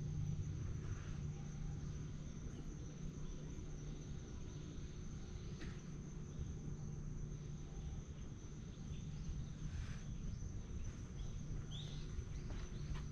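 Insects, likely crickets, keep up a steady high-pitched shrill without a break, over a low background rumble. A short bird chirp comes near the end.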